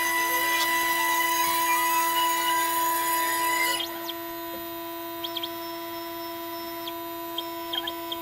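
CNC 6040 router spindle running with a steady high whine while its small engraving bit cuts into red-painted wood. A little under four seconds in, the cutting hiss drops away and the spindle whine carries on more quietly, with a few short chirps near the end.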